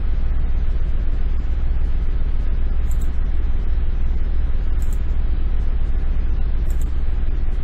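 A steady low hum of background noise, with faint computer mouse clicks about every two seconds.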